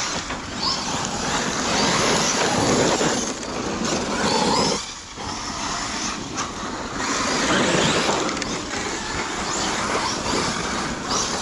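Large brushless electric RC trucks driving on a forest trail: motor whine rising and falling with the throttle over a steady noise of tyres churning dirt. The noise drops briefly about five seconds in.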